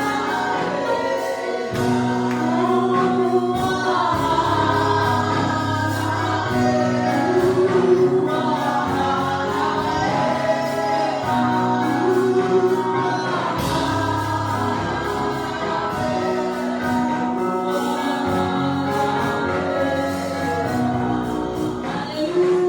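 Gospel choir singing a worship song, several voices together over held low notes.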